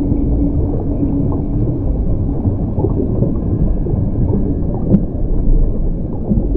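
Steady deep underwater-style rumble with a faint high whine above it, and one sharp click about five seconds in.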